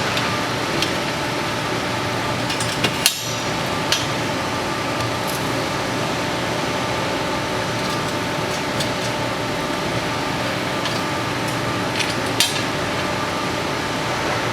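A few sharp metallic clicks and taps as steel bolts and nuts knock against the wheelbarrow's steel braces while being fitted by hand, over a steady background hum.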